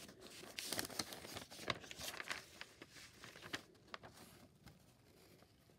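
Paper pages of a spiral-bound notebook being handled and turned, rustling and crinkling irregularly for a few seconds, then dying down near the end.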